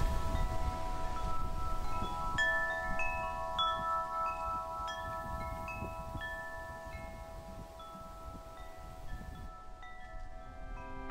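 Wind chimes ringing: irregular struck notes that ring on and overlap one another. Wind buffets the microphone in the first couple of seconds, then fades.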